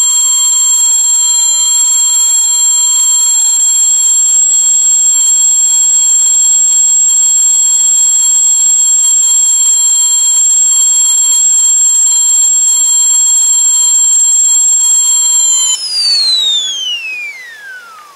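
Whistling kettle at the boil: the spout whistle sounds a loud, steady high-pitched tone made of several pitches together. A couple of seconds before the end it breaks off, and the remaining tone slides steadily down in pitch as it fades.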